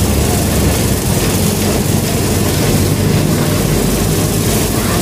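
Steady, loud mechanical background noise: a low rumble under an even hiss, with no clear change.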